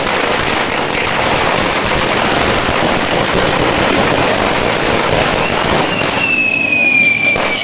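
A 200-shot string of Thunder firecrackers going off in a rapid, unbroken crackle of bangs that thins out about six seconds in, leaving a few scattered pops. A thin high tone, falling slightly in pitch, comes in near the end.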